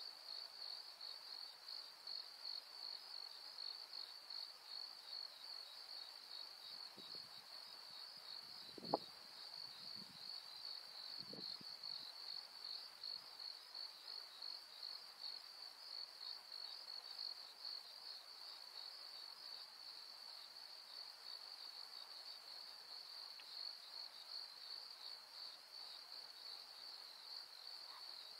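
A chorus of insects chirring: a steady, pulsing high-pitched drone. About nine seconds in there is one brief knock, with a few faint low sounds just around it.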